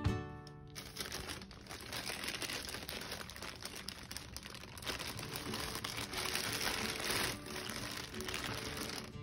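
Plastic bread bag crinkling as it is handled and opened, starting about a second in and going on irregularly.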